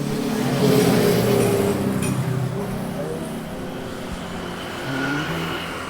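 Street traffic: a motor vehicle's engine running close by, loudest about a second in as it passes and then fading.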